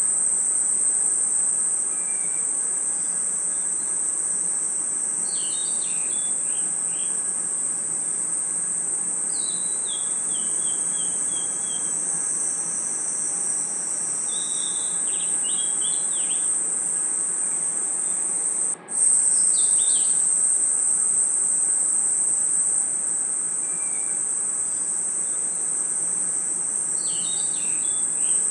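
Night forest ambience of crickets and other insects: a continuous high, shrill trill, with short falling series of chirps breaking in every few seconds. The sound drops out for a split second about two-thirds of the way through.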